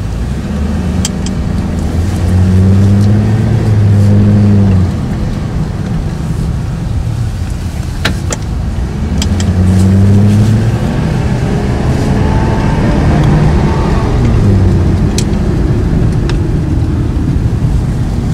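Cadillac XLR-V's supercharged 4.4-litre Northstar V8 heard from inside the cabin on a short drive. The engine note climbs under acceleration about two seconds in and drops back, climbs again near ten seconds, then settles into steadier running.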